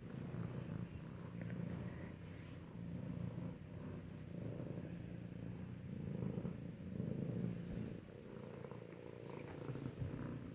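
Two kittens purring loudly close up, a low rumble that swells and fades every second or two.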